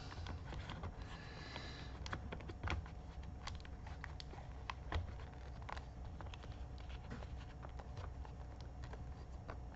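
Faint, irregular plastic clicks and taps as a laptop battery pack is handled and pressed down into its bay in the plastic chassis of an Acer Aspire F5-573G.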